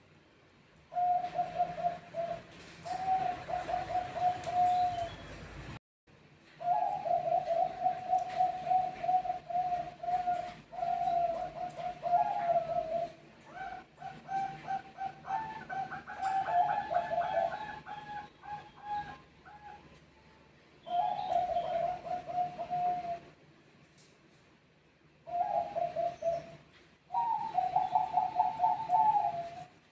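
Zebra doves (Bangkok perkutut) cooing in answer to one another: runs of quick, trilled coos, with a second, higher-pitched voice overlapping in the middle and a short pause near the end.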